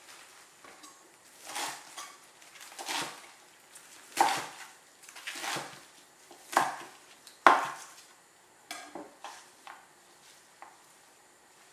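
Chef's knife chopping a bunch of red orache leaves on a wooden cutting board: about six firm chops roughly a second apart, then a few lighter knocks.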